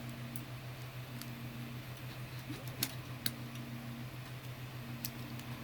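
A few small sharp clicks, two close together about three seconds in and another near the end, from a precision screwdriver and tiny screws being fitted into a Nintendo Switch Joy-Con's plastic shell. Under them runs a steady low hum, with a faint tone that comes and goes.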